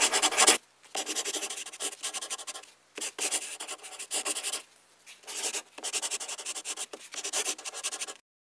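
Writing on paper: a scratchy sound in several runs of quick strokes with short pauses between them, stopping shortly before the end. It opens with a brief, louder rustle.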